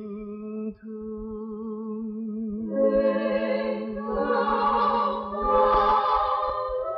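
A vintage Vietnamese love-song duet recording: a singer holds the word "thương" on a long note with vibrato. About three seconds in, the band and backing voices come in fuller, swelling to a peak near the end.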